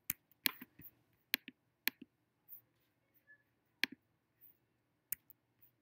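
Sharp, quiet computer mouse clicks, about nine at irregular intervals: a cluster in the first two seconds, one near four seconds, and a pair near the end.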